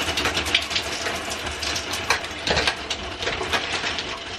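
Gravity-fed shower running, with water spraying from the shower head and splattering unevenly as it lands.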